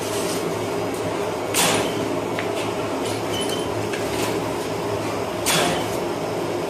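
Steady electric machine hum, from bakery equipment such as the commercial dough mixer. Two short, louder swishes come about one and a half and five and a half seconds in.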